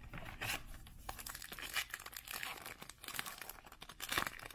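Foil wrapper of a Topps Big League baseball card pack crinkling and tearing as it is ripped open by hand. There is a steady run of crackles, with a louder rip about four seconds in.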